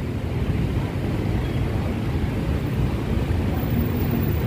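Steady street traffic noise from cars and vans in slow-moving traffic close by, with a low rumble of wind on the microphone.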